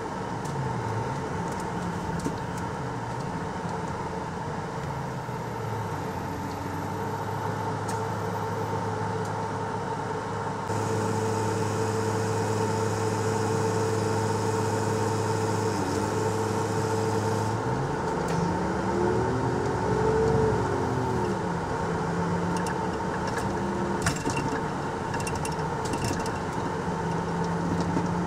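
Bus diesel engine and air compressor heard from inside the bus, the engine pitch rising and falling as it pulls away and eases off, with a steady whine throughout. From about 11 to 17 seconds a steadier hum with a hiss takes over, and around 20 seconds the engine revs up and drops back.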